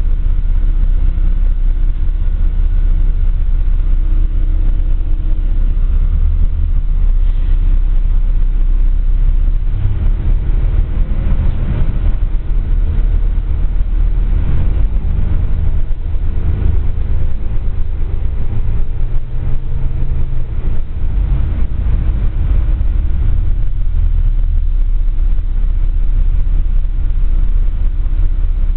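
City bus running, heard from inside the passenger cabin: a steady deep rumble of engine and road noise with a constant hum. Through the middle stretch the engine note rises and falls as the bus changes speed.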